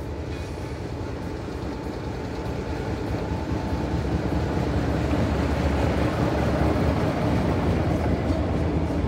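BB 63000-class diesel-electric locomotive running as it pulls a train of open carriages slowly past, with the sound of wheels on the rails. It grows louder through the first half and is loudest as the locomotive and first carriages go by.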